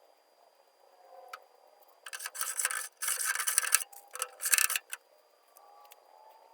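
A single click, then three short strokes of metal scraping and rubbing: a tool chest's steel drawer slides being worked into place.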